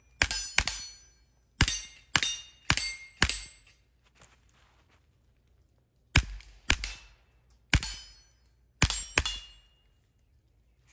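Suppressed Kel-Tec CP33 .22 LR pistol firing Gemtech 42-grain subsonic rounds: about eleven sharp shots in two quick strings with a pause between them, each with a short metallic ring. The pistol cycles every round.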